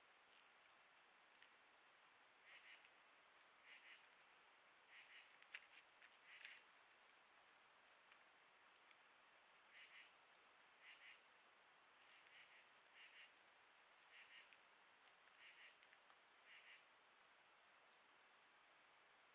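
Faint steady high-pitched drone of night insects, with two runs of short scratching strokes about once a second as a bobcat rakes its claws on a fallen log.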